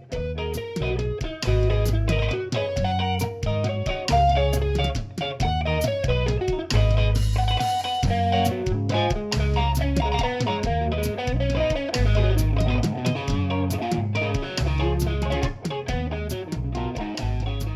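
Background music: guitar-driven rock with a drum kit and a steady beat and bass.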